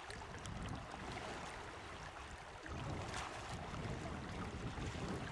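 Wind rumbling on the microphone over the steady rush of a flowing river.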